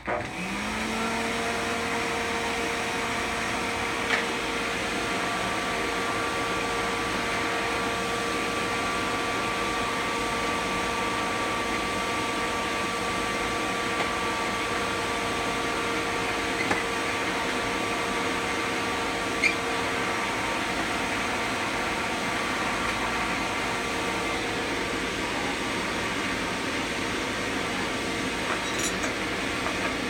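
Pre-war Electrolux Model 30 canister vacuum cleaner switched on: its motor spins up within about a second to a steady whine over the rush of suction air. The motor runs a little rough because its bearings are very dry.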